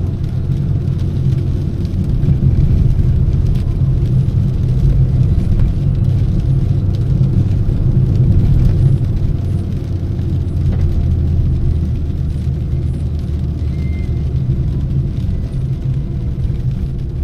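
Steady low rumble of a car's engine and tyres on a wet road, heard from inside the cabin while the car drives downhill.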